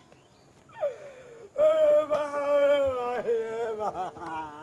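A person wailing: a short falling cry about a second in, then one long drawn-out wail that slowly drops in pitch and wavers as it fades.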